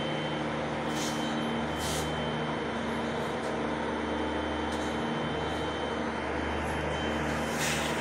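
Steady drone of running turbine-plant machinery, with a thin high whine held throughout and a few short hisses, the strongest near the end.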